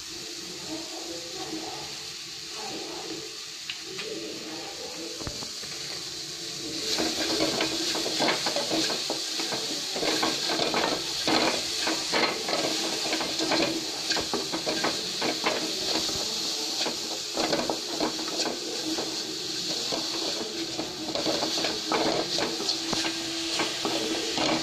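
Vegetables sizzling in hot oil in a metal kadai while a wooden spatula stirs and scrapes them against the pan. The sizzle and scraping grow louder about seven seconds in.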